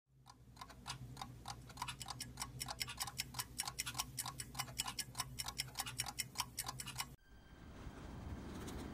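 Clocks ticking, several ticks a second in a slightly uneven pattern of more than one clock, fading in over a low steady hum. It cuts off abruptly about seven seconds in and gives way to a steady outdoor hiss.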